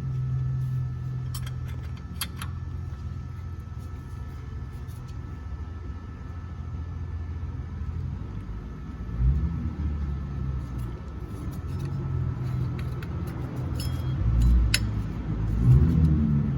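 A few light metallic clinks of a wrench working the serpentine belt tensioner, two near the start and one near the end, over a steady low rumble, with a couple of dull knocks along the way.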